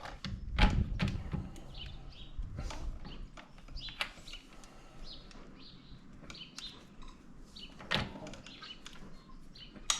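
Scattered knocks and clunks of hand work on a car's rear brakes, the loudest about half a second and a second in and again near eight seconds, with birds chirping in the background.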